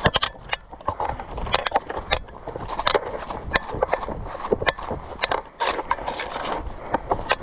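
Footsteps of people moving quickly over the forest floor: a quick, irregular run of crunching steps with brush rustling between them.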